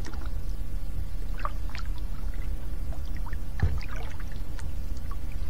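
Water heard through an underwater action camera: a steady muffled low rumble with scattered faint clicks and small dripping ticks.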